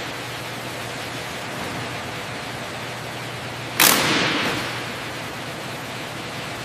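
Steady hissing workshop ambience, broken just under four seconds in by a sudden loud burst from a handheld pneumatic power tool that fades away over about a second.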